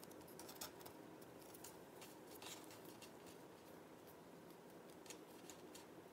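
Near silence with faint, irregular light taps and soft rustles from hands pinching and pressing rolled raisin dough against a wooden cutting board.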